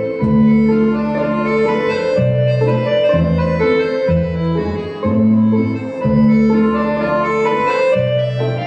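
Instrumental music: held chords over a slow bass line that steps to a new note about once a second.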